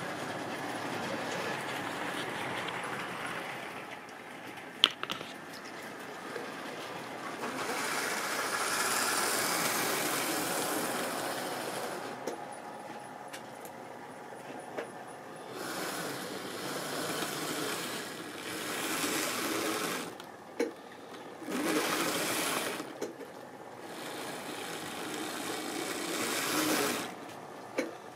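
Tri-ang and Lima model trains running on sectional track: the whirr of small electric motors and the rattle of wheels over the rails, growing louder and fading as trains pass close. A sharp click sounds about five seconds in.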